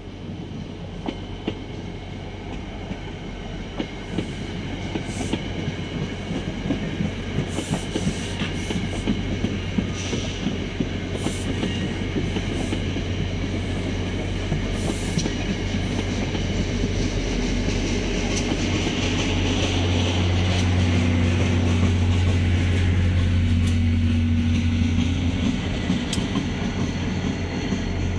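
Passenger train passing at track side, its wheels clicking over the rails, under a steady low drone that builds in loudness and is loudest in the last ten seconds or so.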